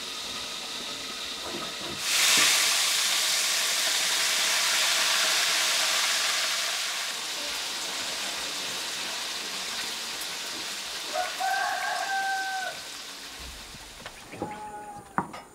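A loud, even hiss comes in suddenly about two seconds in and slowly fades. Over it a rooster crows once, about eleven seconds in, and a few light knocks follow near the end.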